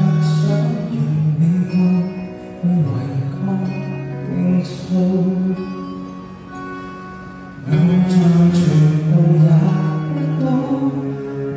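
Male singer singing a ballad live into a handheld microphone over instrumental accompaniment, amplified through a concert sound system, with long held notes. The music drops quieter in the middle and swells louder again about eight seconds in.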